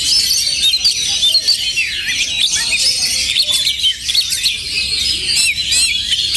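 Caged oriental magpie-robins singing at a bird-singing contest: a dense, unbroken chorus of overlapping rapid whistles, trills and chirps, one bird's song running straight into the next.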